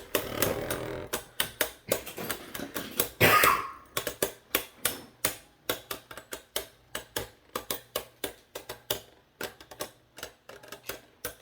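Two Beyblade spinning tops battling in a plastic stadium: a rapid, irregular run of sharp plastic clicks as they knock together and rattle, with one louder hit about three seconds in.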